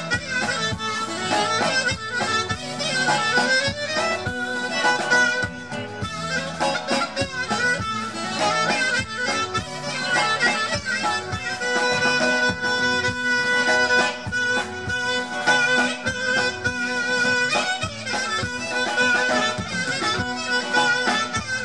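Clarinet playing a traditional Greek folk tune, its melody moving in quick runs and bends over lower sustained accompaniment, amplified through a PA loudspeaker.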